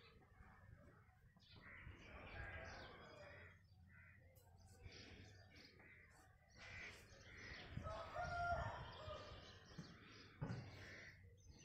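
Faint outdoor ambience with birds calling now and then, a little louder around two thirds of the way through.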